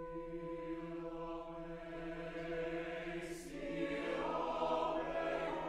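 Mixed choir singing sustained chords, swelling louder about four seconds in.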